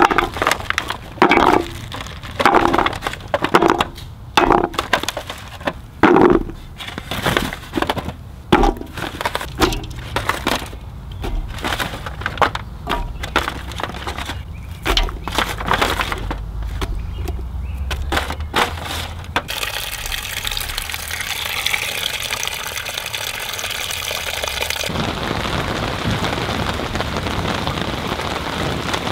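Chunks of carrot, potato and green pepper dropped by hand into an empty metal cooking pot: a quick, uneven series of sharp knocks and clunks. About two-thirds of the way in the knocks stop and a steady hiss takes over.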